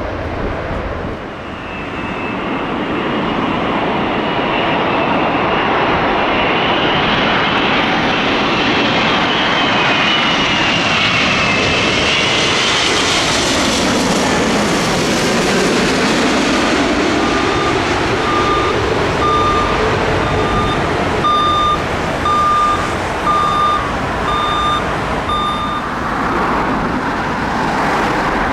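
The jet engines of a landing Airbus A380 run loud and steady as it comes in on approach and passes low overhead, and the engine whine falls in pitch as it goes by, about halfway through. In the second half a short beep repeats about once a second for several seconds.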